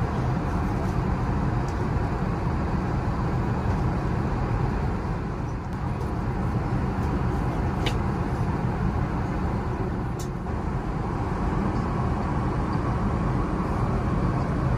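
Steady in-flight cabin noise of an Airbus A380, engine and airflow rumble heard from inside the cabin, with two brief clicks a couple of seconds apart about halfway through.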